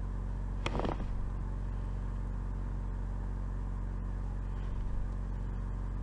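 Steady low background hum, even and unchanging, with one brief short sound just under a second in.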